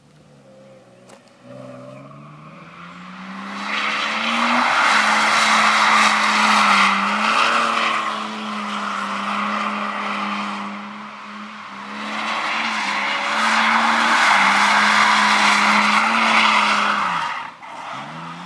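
BMW E36 323i coupe's straight-six engine revving up and held at steady high revs while the tyres squeal through two long drifts, easing off for a moment about halfway between them. The engine note and the squeal cut off sharply near the end.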